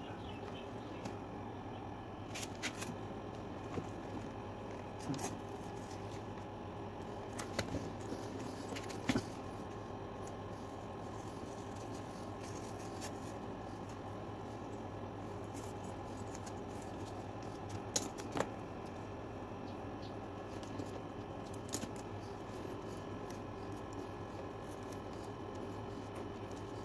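Scattered small clicks and snips of handwork, about eight spread through the stretch, over a steady low hum.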